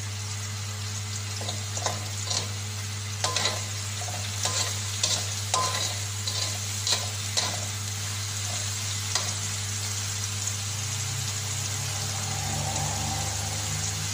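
Minced onion sizzling in hot oil in a wok as it is sautéed, over a steady low hum. A spatula scrapes and taps against the wok in a string of sharp strokes through the first two-thirds, then the sizzle carries on alone.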